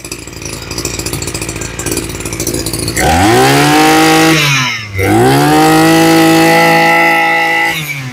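Maruyama BigM BC20C brush cutter engine idling, then revved up and held at high speed twice, dipping briefly between the two runs and dropping back to idle near the end. It runs crisply, sounding no different from a new engine.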